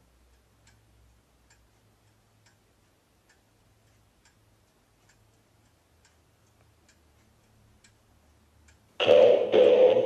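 Grandfather clock ticking faintly, a tick a little under every second. About nine seconds in, a much louder musical sound starts abruptly.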